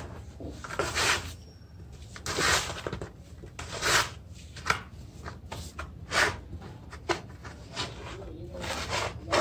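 Hands crumbling and mixing damp red sand and water paste in a plastic tub: a series of short gritty rubbing, crumbling strokes, roughly one a second.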